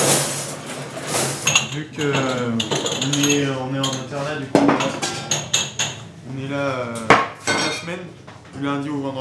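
Crockery, glasses and cutlery clattering as dishes are handled at a canteen washing-up station, with a couple of sharp clinks partway through.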